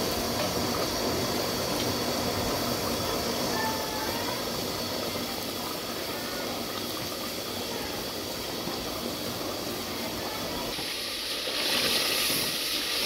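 Thick mutton gravy bubbling and sizzling in an open pressure cooker as a wooden spoon stirs it, frying down after pressure-cooking. About eleven seconds in, the sizzling hiss grows louder and brighter.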